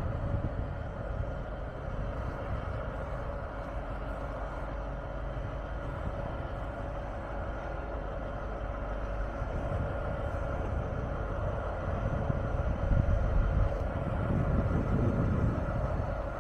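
Train running through a station: a steady low rumble with a constant hum over it, the rumble swelling louder near the end.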